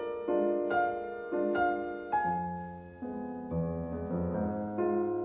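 Background piano music: single notes and chords struck every half second to a second, each ringing on and fading.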